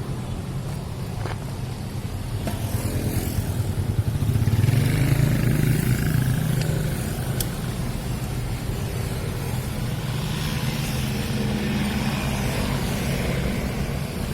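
A motor vehicle engine running steadily, growing louder about four seconds in and easing back a couple of seconds later.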